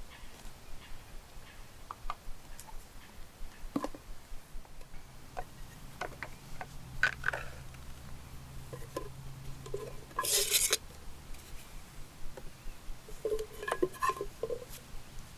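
Light clinks and taps of camp cookware and utensils being handled, with a short loud burst of rustling about ten seconds in.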